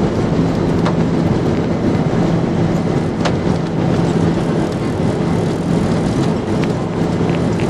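Airliner at takeoff: a loud, steady drone of noise with a steady low hum underneath and a few faint clicks.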